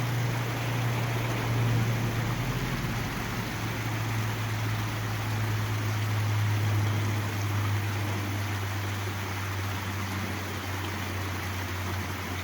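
Creek running, a steady rush of water, over a steady low hum of motor traffic on the road beside it.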